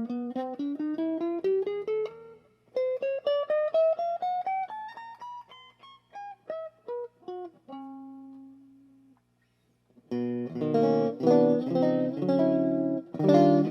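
Fernandes Stratocaster-style electric guitar playing fast picked single-note runs that climb in pitch, then a few scattered notes and one held note that fades out. After a second's silence, chords are strummed.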